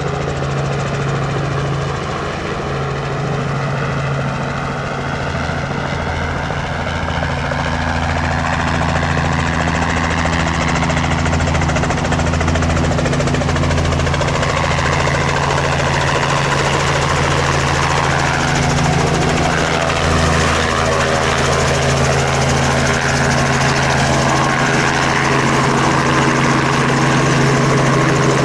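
Robinson R44 Raven helicopter running, its piston engine and rotor making a continuous, steady sound that grows somewhat louder in the second half.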